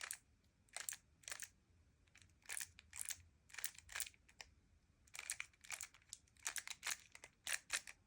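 Speedcube's top layer being flicked round by the index fingers: a string of short plastic clicks and clacks as the layer turns, coming in quick pairs for the double-flick U2 turn and more often toward the end.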